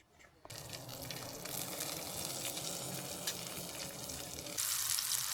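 Food frying and sizzling in a pan. The sizzle starts abruptly about half a second in and turns brighter and louder near the end.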